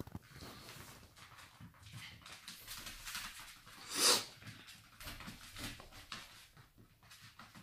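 Yorkshire terrier's faint snuffling and breathing, with one short, sharp, louder puff of noise about four seconds in.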